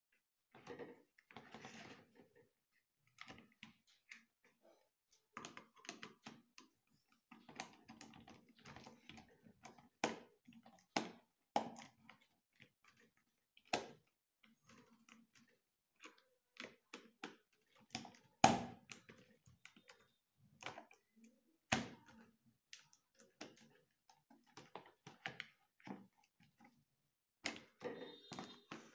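Faint, scattered clicks, taps and rustling of hands fitting wires into the terminals of a plastic socket and switch mounted in a cardboard box, with sharper knocks about 18 and 22 seconds in.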